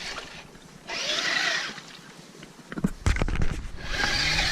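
Axial SCX10 II scale RC crawler's electric motor and gears whining in two short bursts of driving. Between them come a few sharp knocks, about two-thirds of the way in.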